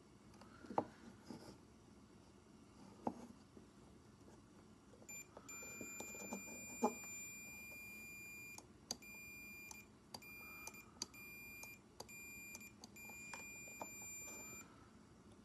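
A steady electronic beep that starts about five seconds in and sounds in six stretches, the first about three seconds long and the rest about a second or less, with sharp clicks and small handling knocks around it.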